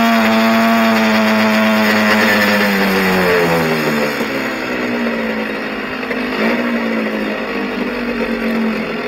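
Honda NSR mini bike's two-stroke engine holding a steady high pitch, then falling away as the throttle is closed and the bike slows. It settles into a lower, uneven running, with one short blip of the throttle a little past halfway.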